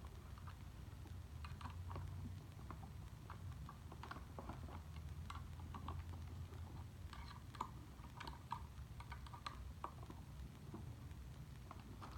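Scattered light clicks and taps, irregular and close together, over a steady low hum.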